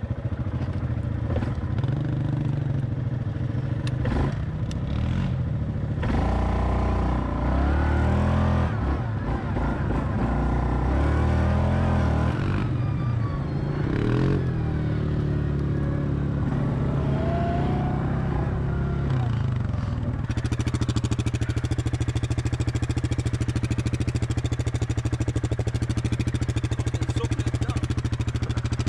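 Yamaha 700 ATV's single-cylinder engine revving up and down repeatedly, then running at a steady pitch from about two-thirds of the way in.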